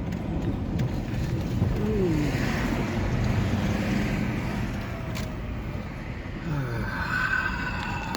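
A vehicle engine running under steady road rumble. Its pitch drops twice as the engine slows or shifts gear.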